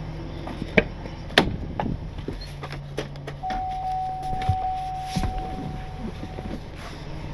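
Driver's door of a GMC cutaway box truck opened, with latch clicks and knocks as someone reaches into the cab, then a steady electronic warning tone from the dash for about three seconds. A low engine hum runs steadily underneath.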